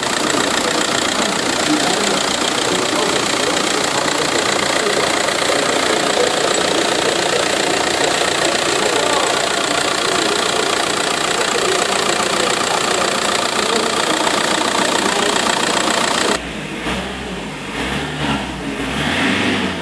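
Audi A4's 1.9 TDI four-cylinder turbodiesel engine running steadily, heard up close under the open bonnet. About 16 seconds in the sound turns quieter and muffled, heard from inside the cabin, with the engine revs rising and falling as it is revved.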